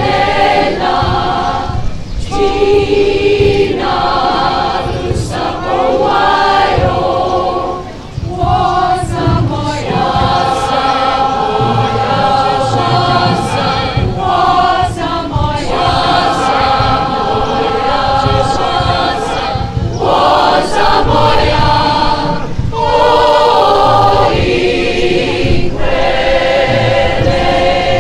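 Community choir of mostly women's voices singing unaccompanied, in phrases with short breaths between them.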